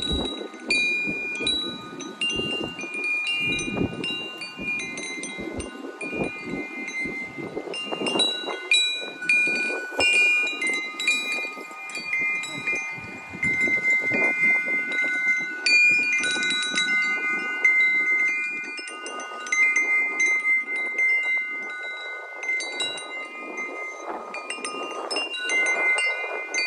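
Wind chimes ringing: many overlapping bell-like tones, struck irregularly and left to ring, over a low rushing noise.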